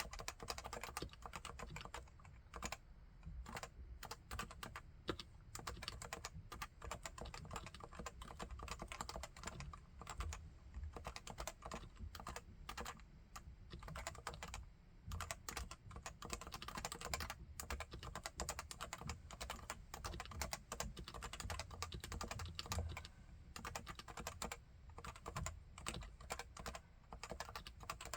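Steady, fast typing on a Leopold FC980C keyboard with electrostatic capacitive Topre switches of 45 g weighting: a continuous stream of keystrokes with no pauses longer than a moment.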